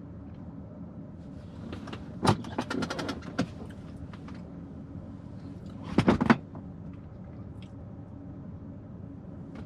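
Car engine idling steadily, with two short bursts of clicking and rattling, about two seconds in and again about six seconds in.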